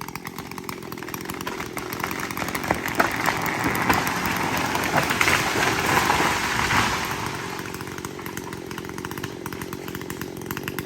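Echo CS-620PW two-stroke chainsaw running under load, cutting through a large dead tree trunk; the sound swells louder through the middle and eases off near the end.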